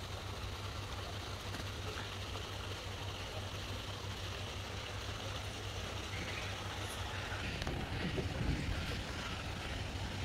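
Steady outdoor background noise with a low rumble, and a few faint knocks near the end.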